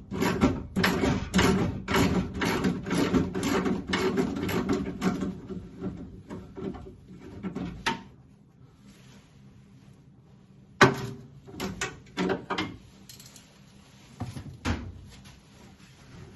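A socket ratchet clicking in quick repeated strokes as the 7/16 bolts that hold the door-glass adjustment are turned out. After a pause come a loud metallic knock and a few lighter knocks.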